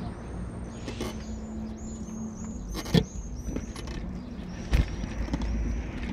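Small birds chirping over a low steady rumble, with three sharp knocks, at about one, three and five seconds in.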